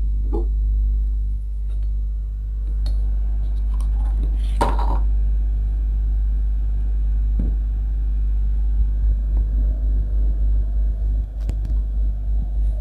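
Steady low rumble of a hot air rework station's blower, with a few light knocks as the motherboard is handled. About nine seconds in the rumble begins to pulse unevenly as the hot air nozzle is brought to the board to desolder a MOSFET.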